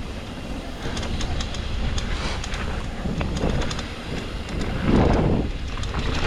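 Wind buffeting the microphone as a low, steady rumble, with scattered rattling clicks and a louder swell about five seconds in.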